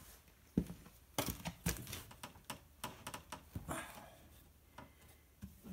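Irregular knocks and clicks of pine boards being handled and set in place on a workbench, a rapid scatter of light taps for a few seconds that thins out toward the end.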